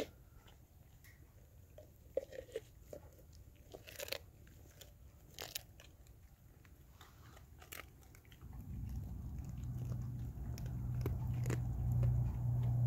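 Blue Bay Shepherd biting and crunching through a whole raw fish, with scattered sharp crunches. About eight seconds in, a low steady hum comes in and grows to be the loudest sound.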